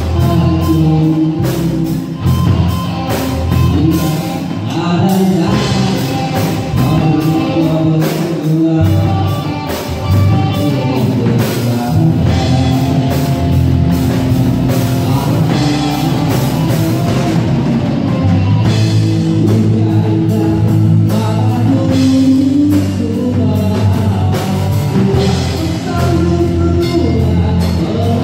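Live rock band playing: electric guitar, bass guitar and a Sonor drum kit keeping a steady beat, with a man singing into a handheld microphone.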